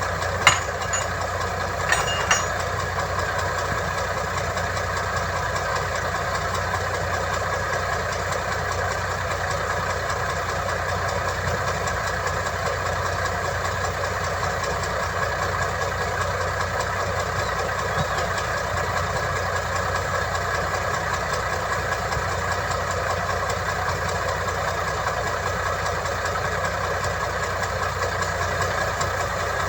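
Heavy diesel engine of road-construction machinery running steadily at an even speed, with a few sharp metallic knocks about half a second and two seconds in.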